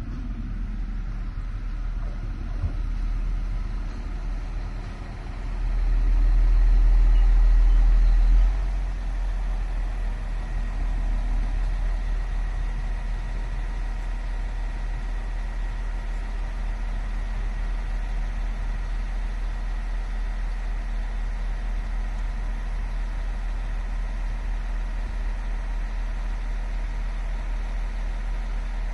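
A Siemens Desiro diesel multiple unit (DB class 642) draws into the platform and stops, with a loud low rumble for about three seconds starting some five seconds in, then stands with its diesel engines idling in a steady low hum and a faint high whine.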